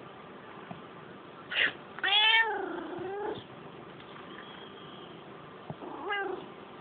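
A short, sharp sneeze, followed at once by a domestic cat's long, angry yowl that bends up and down, and a shorter yowl a few seconds later. The cat is yowling in protest at the sneeze.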